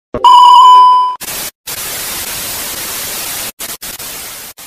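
Edited-in sound effect: a loud electronic beep lasting about a second, then TV-style static hiss that breaks up and stutters near the end.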